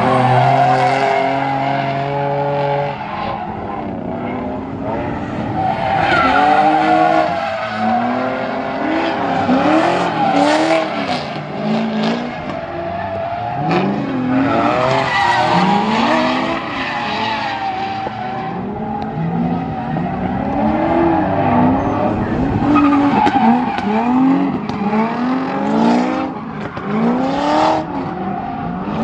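Drift cars' engines revving up and down over and over while their tires squeal through sideways slides. An engine holds one steady pitch for the first few seconds, then the rapid rise-and-fall revving keeps repeating.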